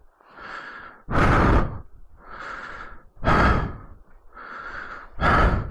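A person breathing hard close to the microphone, about one breath a second, louder and softer breaths alternating: a dirt-bike rider winded after a crash and lifting the bike.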